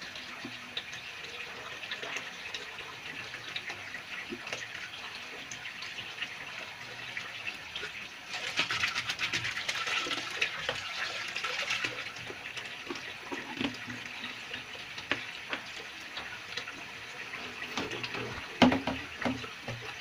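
Water running from a fill hose into the wash tub of a twin-tub washing machine, a steady splashing. About eight seconds in, the splashing turns louder for some four seconds as a hand works the detergent measuring cup in the water at the hose outlet.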